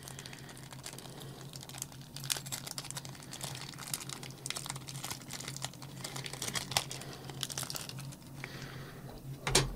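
A small plastic parts bag crinkling and rustling in the hands as it is opened and the mounting hardware is picked out, with scattered small clicks and a steady low hum underneath. There is a louder knock near the end.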